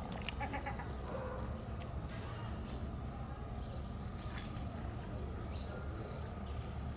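Outdoor ambience: a steady low rumble with scattered short high chirps, and a brief pulsed animal call about a third of a second in.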